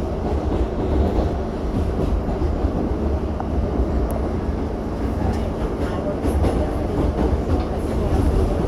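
New York City subway train running, heard from inside the car: a loud, steady rumble of wheels on the track with a few light clicks and rattles.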